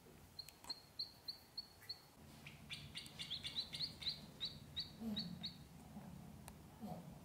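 Ducklings peeping: short, high cheeps, first a slow evenly spaced run, then a quicker, busier run of peeps from about three seconds in that stops after five and a half seconds.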